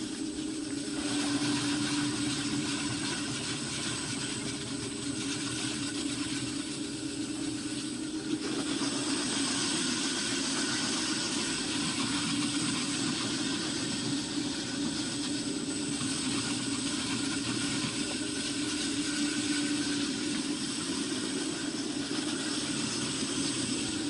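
Electric walk-behind concrete floor grinder running steadily as it grinds a concrete slab with metal diamond tooling: a constant hum with a faint high whine over it.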